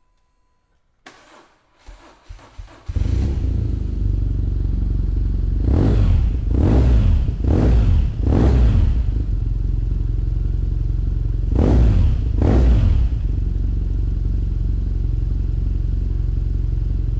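BMW R nineT's 1,170 cc air/oil-cooled boxer twin, fitted with an Akrapovič exhaust, starting up about three seconds in and settling to idle. It is blipped on the throttle four times in quick succession, then twice more, each time falling back to a steady idle.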